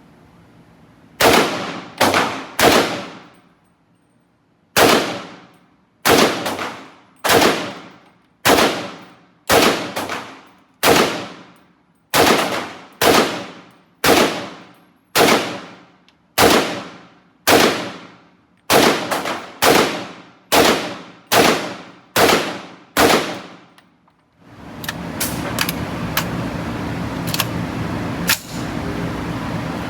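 Gunfire at a shooting range: about two dozen single shots, each with a short ringing tail. They start as a quick group of three, pause, then go on at roughly one shot a second for about twenty seconds. Near the end the shooting stops and a steady rushing noise takes over, with a few faint clicks.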